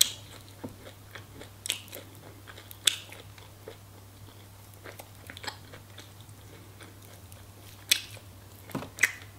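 Chewing and biting into fried chicken, with scattered sharp crunches through the chewing.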